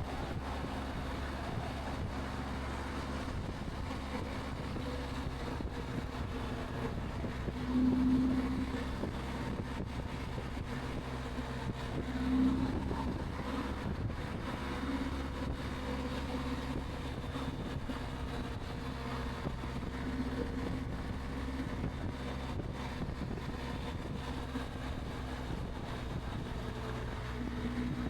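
Steady wind rush and the drone of a BMW R 1250 GS's boxer-twin engine at a constant 65 mph cruise, heard from a microphone at the rider's ear inside a Sedici Sistema II modular helmet. The sound swells briefly about eight seconds in and again about twelve seconds in.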